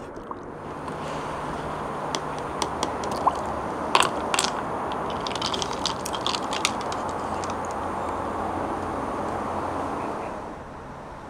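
Ice cubes clinking and knocking against a plastic straw and paper cup as iced milk tea is stirred: a cluster of sharp clicks over a few seconds, the loudest about four seconds in. A steady background rumble runs underneath and eases near the end.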